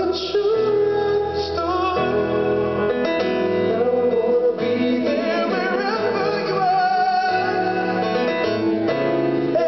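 Live R&B ballad: male voices singing together over a Yamaha grand piano.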